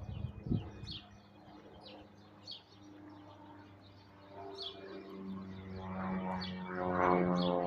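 A small songbird chirping over and over, short high calls about once a second. From about halfway, a steady drone of several held tones swells up beneath the calls and becomes the loudest sound.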